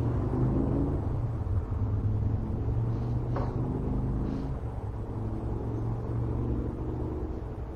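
Steady low rumble with a hum under it; no speech.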